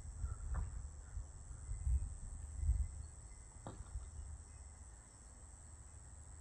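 Steady high-pitched drone of night insects over a low, uneven rumble, with two faint ticks, one about half a second in and one near four seconds.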